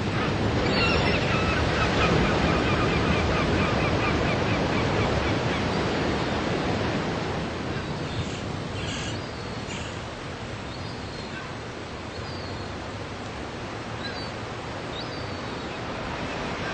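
Surf washing on a beach under a steady wind, louder in the first half and easing off later. A bird chirps in a rapid repeated series during the first few seconds, with a few short high chirps later on.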